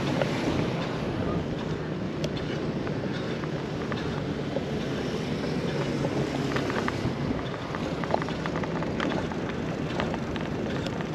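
Wind buffeting the camera's microphone while riding a bicycle, a steady rushing noise with a faint low hum underneath.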